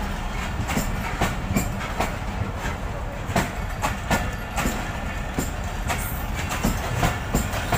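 Passenger train coaches rolling past at speed: a continuous rumble with a steady run of sharp wheel clicks and knocks as the bogies cross the rail joints.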